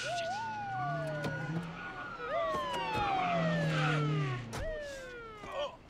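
Several police car sirens wailing at once, overlapping. Each tone jumps up and then falls slowly in long sweeps. A sharp knock comes about four and a half seconds in, and the sirens grow fainter near the end.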